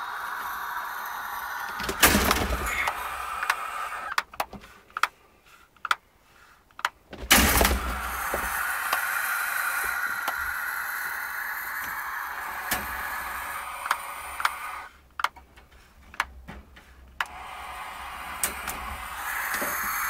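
Adult barn owl hissing defensively in long rasping bouts, with sharp clicks and two loud knocks about two and seven seconds in.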